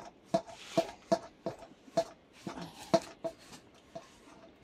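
Flat stone grinding slab tapping and knocking lightly against a steel bowl while ground fiddlehead paste is scraped off it into the bowl: irregular short knocks, about three a second, each with a brief metallic ring.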